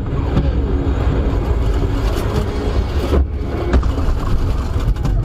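Loud, steady low rumble of a motor vehicle, with a few short knocks about three and four seconds in.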